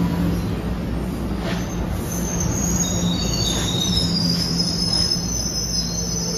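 NJ Transit Multilevel passenger coaches rolling into a station: a steady low rumble, joined about two seconds in by several overlapping high-pitched squeals as the train slows.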